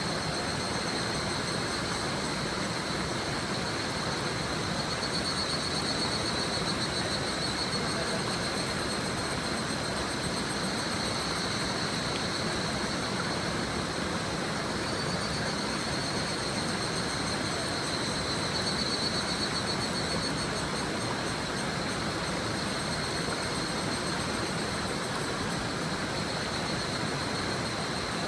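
Higurashi cicadas (Tanna japonensis) calling in high, rapidly pulsing trills over the steady rush of a shallow river. The calls swell twice as more cicadas join in.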